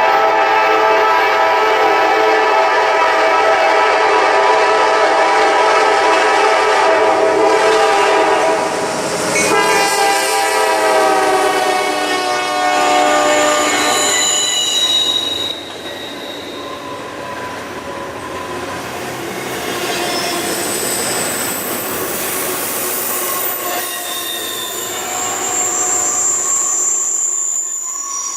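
Diesel locomotive air horn sounding a long, loud chord, its pitch shifting lower about nine seconds in, then stopping about fifteen seconds in. After it the passing intermodal train's wheels squeal with thin high tones over the rumble of the cars.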